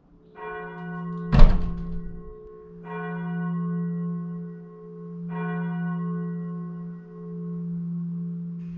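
A heavy wooden door slams shut with a loud thud about a second and a half in. Slow bell-like tones ring over it, struck again about every two and a half seconds, each dying away over a long steady hum.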